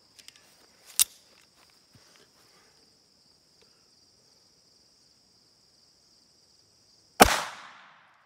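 A single .22 LR shot from a Ruger LCP II compact pistol near the end: a sharp, loud crack with a ringing tail that dies away over about a second. Before it come a small sharp knock about a second in and a few light handling sounds, over a steady high drone of insects.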